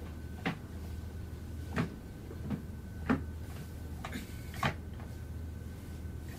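About six short, sharp knocks and taps at uneven intervals over a steady low hum.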